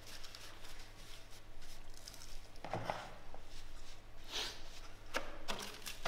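Quiet eating at a table: metal cutlery clicking and scraping against plates and a plastic food container, as a few scattered taps and scrapes over a faint steady room hum.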